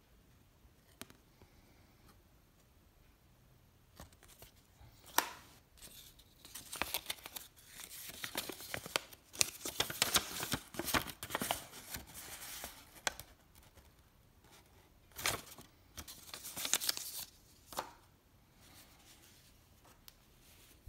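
Rustling and crinkling of paper and thin card being handled, with the card slid in and out of a paper sleeve, in uneven bursts mostly through the middle, with a few sharp clicks.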